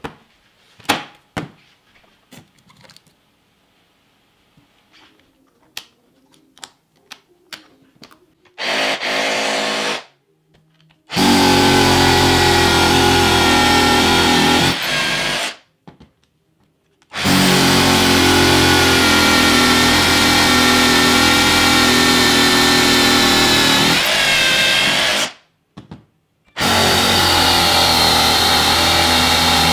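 Scattered sharp clicks and knocks as a battery pack is handled on its charger. Then a Hitachi DH 15DV 12 V cordless rotary hammer drill bores into a concrete block in four runs: a short one about nine seconds in, then three long ones, each starting and stopping abruptly.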